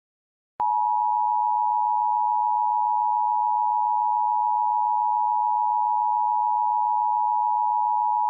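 Emergency Alert System attention signal: two steady tones sounded together, starting about half a second in and held unchanged. It announces that an emergency alert message is about to be read.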